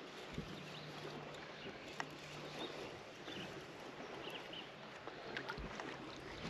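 Quiet ambience on a fishing boat: light water and air noise with a faint low steady hum that drops in and out, and a few faint small clicks.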